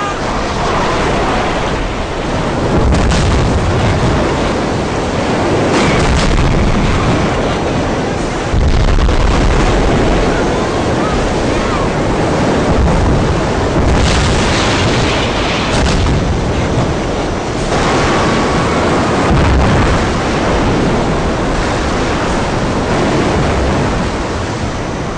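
Disaster-film sound effects of a tsunami: a continuous rush of surging water and wind over a deep rumble. Several heavy crashes come through, around 3, 6, 14 and 16 seconds in.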